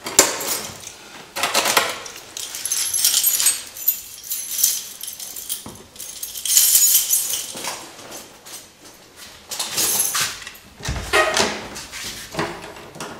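Keys and metal lock parts jangling and clinking in irregular bursts as they are rummaged through and handled, with a dull thump near the end.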